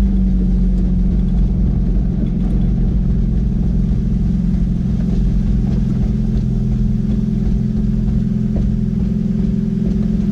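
Jeep Wrangler TJ engine running at a steady pace at low speed off-road, heard from inside the cabin.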